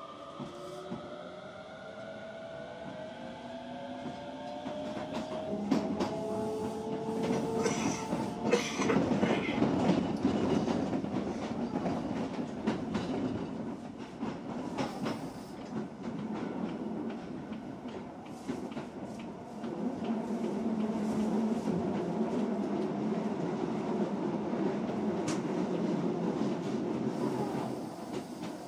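Osaka Metro 66 series electric train heard from on board. Its motors whine in several tones that fall in pitch over the first several seconds. Then the wheels rumble steadily on the rails, with rail-joint clatter and short knocks around eight to ten seconds in.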